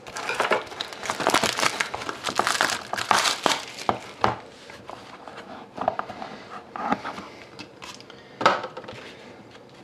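Packaging around a pack of trading cards crinkling and rustling as it is torn open and handled. The crinkling is dense for the first four seconds or so, then turns to scattered rustles and ticks, with one sharp click about eight seconds in.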